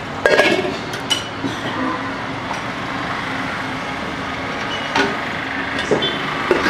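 Steady hum of road traffic, with a few sharp clinks and knocks of stainless-steel lids and plates being lifted and set down: once near the start, once about a second in, and a few times near the end.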